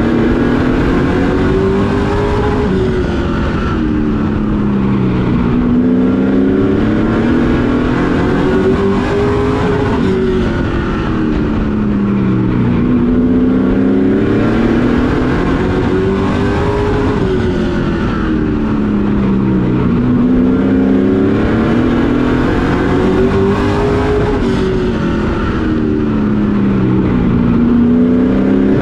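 Racing pickup truck's engine heard from inside the cab, running hard and loud, its pitch climbing and then dropping back again every six to seven seconds as it laps a short oval, pulling down the straights and easing off into each turn.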